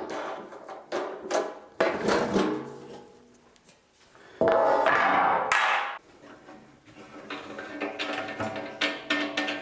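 Knocks and metallic clatter of the band saw's covers being handled and taken off, then background music with percussion coming in about seven seconds in.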